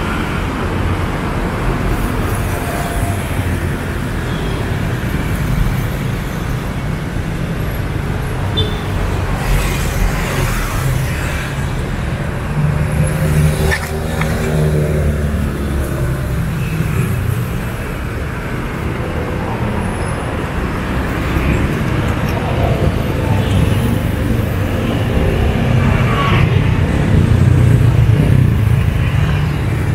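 City street traffic: cars and other motor vehicles running past in a steady low rumble, with a louder vehicle going by near the end.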